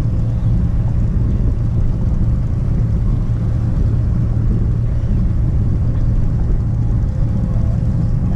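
Boat's outboard motor running steadily at trolling speed, a constant low hum.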